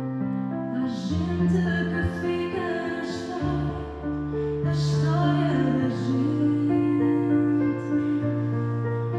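A woman singing, holding long notes, over a steady low instrumental accompaniment.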